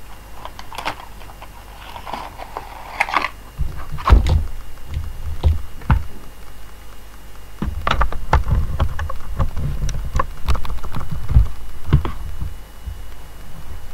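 Handling noise of an SD card being plugged into a computer's card slot: rustling, then sharp clicks and knocks with low thumps, clustered about four seconds in and again from about eight to twelve seconds.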